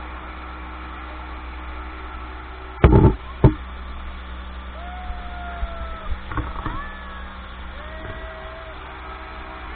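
Speedboat engine running steadily under way, with two loud thumps a little under three seconds in. A few long, drawn-out voice calls come from the riders in the second half.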